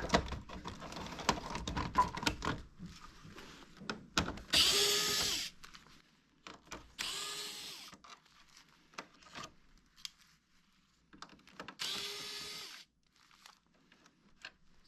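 Cordless electric screwdriver, three short runs about a second each, its motor whine rising as it spins up, as screws are taken out of an air-conditioner indoor unit. Clattering knocks and clicks of plastic parts being handled come before them.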